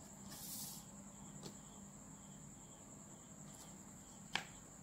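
A faint steady high-pitched whine, with a pen scratching briefly on paper near the start and small clicks of a plastic ruler being handled. The sharpest click comes about four seconds in, as the ruler is set down.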